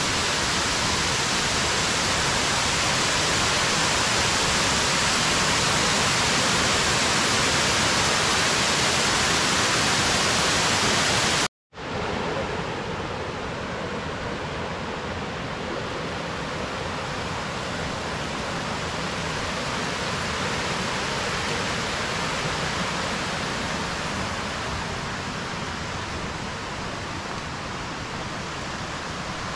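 Tiered waterfall cascades rushing: a steady, dense hiss of falling water. About a third of the way in it cuts off for an instant and comes back a little quieter, as more distant rushing water.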